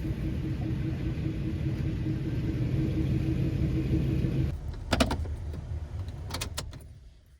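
Pickup truck running with a steady low rumble that stops about four and a half seconds in, followed by a few sharp clicks and knocks.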